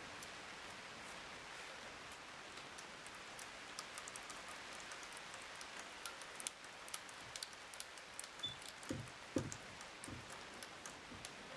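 Hand bit brace boring an auger bit into a timber beam: a faint, irregular crackle and ticking of wood being cut, with a few low knocks about nine seconds in.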